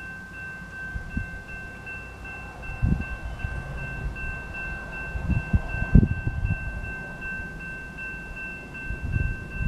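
Railroad grade-crossing warning bell ringing in rapid, steady repeats, the signal that the crossing has activated for an approaching train while the gates come down. Gusts of wind buffet the microphone with low rumbles a few times.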